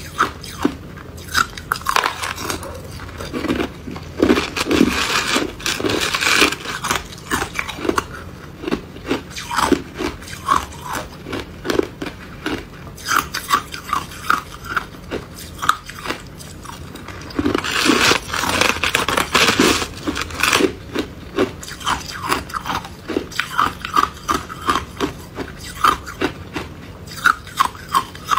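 Hard ice being bitten and chewed: sharp cracking crunches, denser around four to seven seconds in and again near eighteen to twenty seconds, with a quick run of smaller crunches in between.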